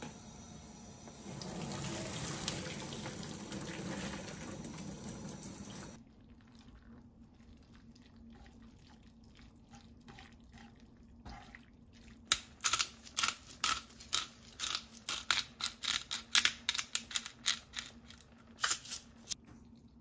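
Hot pasta water poured from a pot into a plastic colander in a stainless steel sink, a steady rush of water lasting about five seconds and stopping suddenly. Later, chopsticks tossing ribbon pasta in cream sauce in a frying pan, a quick, irregular run of sharp clicks against the pan with wet squishing.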